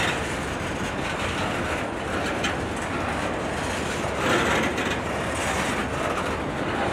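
Freight train of empty intermodal flatcars rolling past close by: steel wheels rumbling steadily on the rails with a few clicks, swelling briefly about four seconds in.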